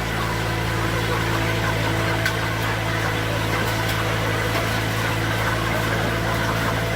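Steady mechanical hum of a poultry-catching machine's motor running, even and unchanging throughout.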